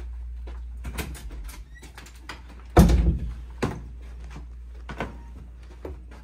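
A series of knocks and clicks with one heavy thump just under three seconds in, over a steady low hum.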